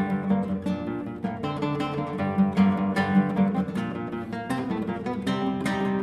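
Solo nylon-string classical guitar fingerpicking a folk tune: quick plucked notes in a dense run over a ringing low note.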